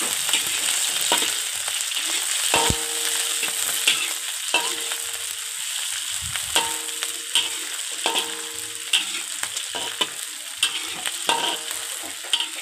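Sliced shallots and chillies sizzling in hot oil in a metal wok, stirred with a metal spatula that scrapes and knocks against the wok about once a second, the wok ringing briefly after some strokes.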